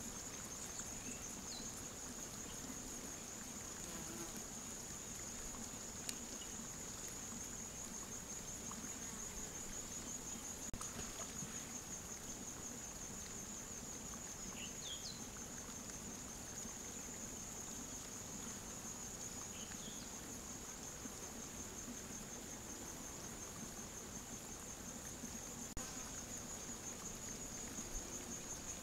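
Steady, high-pitched insect chirring, with a few faint short chirps in the middle.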